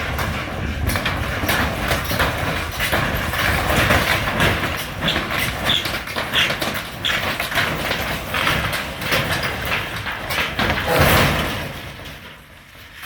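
Barn demolition noise: old boards and framing creaking, cracking and clattering, with knocks and thuds, as a loosened section of the structure shifts. It is loudest about eleven seconds in, then dies away near the end.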